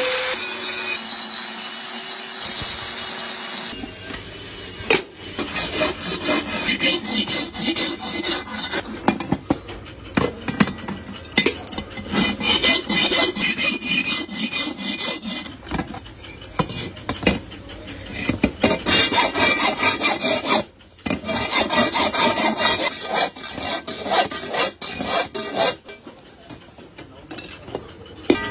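An angle grinder grinds the weld seam of a metal pan bowl for about the first four seconds. Then a hand file rasps along the weld seam in repeated back-and-forth strokes.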